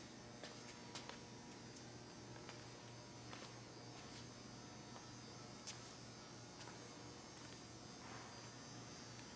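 Near silence: a faint, steady low electrical hum, with a few soft clicks.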